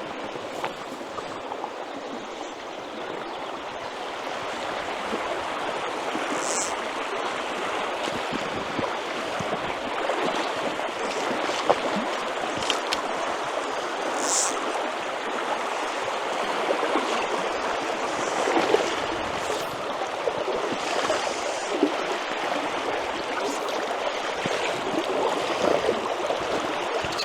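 River running: a steady rush of flowing water that swells slightly over the first several seconds.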